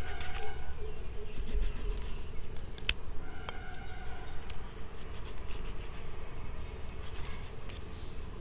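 A small knife shaving and scraping a thin bamboo twig to make an ice-cream stick: irregular scratchy scraping with scattered sharp clicks, one louder click about three seconds in.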